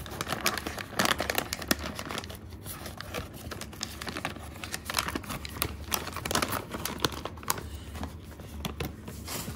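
Snack packaging crinkling and crackling in irregular bursts as it is handled and the drumstick biscuits are pulled out of it.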